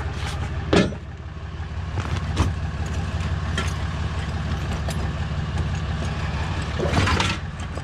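Truck engine idling steadily, with a few sharp metal clanks and knocks from tow gear being handled, the loudest near the end.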